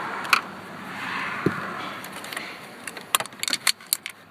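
A brief click, then a quick run of sharp plastic clicks and taps near the end: screws and a plastic dash trim piece being handled as the headlight switch is worked loose.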